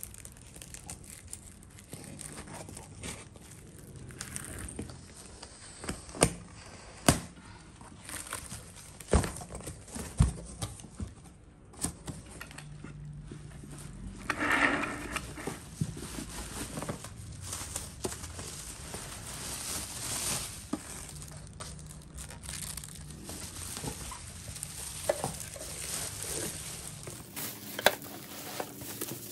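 Unboxing handling noises: plastic stretch film and bubble wrap crinkling and rustling, cardboard flaps shifting, and scissors cutting the wrapping. Scattered sharp knocks and clicks come from the hard plastic trays and the rotating base being handled, the loudest about six and seven seconds in.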